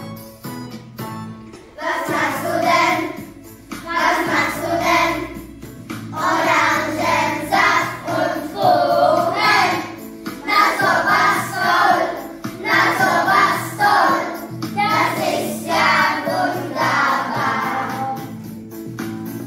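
A class of young children singing a song together in German over an instrumental backing track with a jingle-bell sound; the voices come in about two seconds in, after a few seconds of accompaniment alone.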